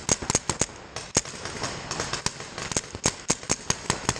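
Paintball markers firing: a rapid, irregular string of sharp pops, several a second, some louder and nearer than others.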